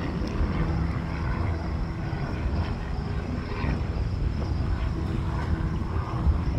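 Low, steady rumble of distant aircraft jet engines across the airfield, mixed with wind buffeting the microphone.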